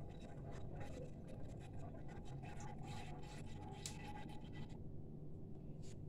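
Ginger and turmeric pulp being pressed and scraped against a metal mesh sieve, by hand and then with a spoon: a run of short scratching strokes that stops about three-quarters of the way through.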